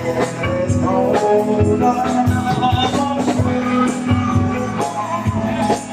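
A band playing a song: a singer's voice over steady drums and bass.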